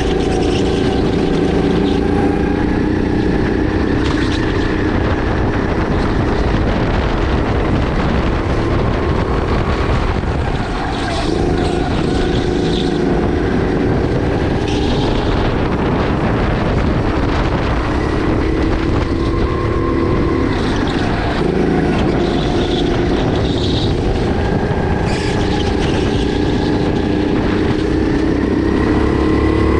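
Sodi RX8 kart's 270 cc LPG engine running at full racing pace, its pitch climbing on the straights and dropping off into the corners several times, with a brief lift about eleven seconds in.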